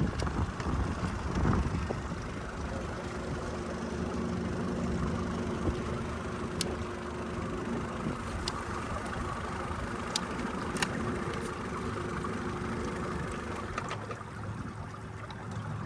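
A small boat's outboard motor running steadily at low speed, with wind and water noise around it. A few brief clicks come through in the middle.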